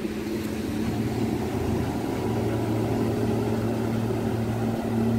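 Outboard motorboat engine running steadily, an even low hum that grows slightly louder over the first couple of seconds.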